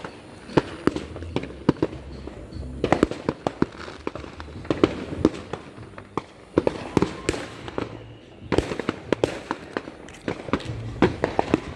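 Fireworks and firecrackers going off: a continuous, irregular run of sharp bangs and pops, some coming in rapid clusters.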